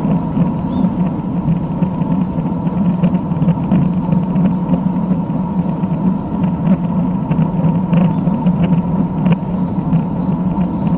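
Steady rumble of wind and road noise on a road bike's mounted camera during a climb, with faint scattered ticks.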